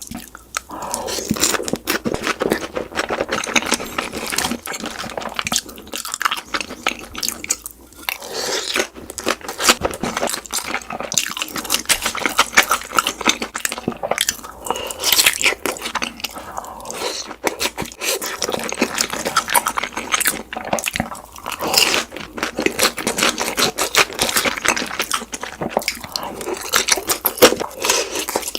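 Close-miked eating sounds: continuous crunching and chewing of crisp food, a dense run of sharp crackles. The playback is sped up.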